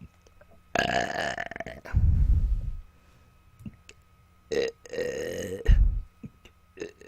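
A woman burping: two long burps, one about a second in and one about four and a half seconds in, each ending in a deep low rumble. A third burp begins right at the end.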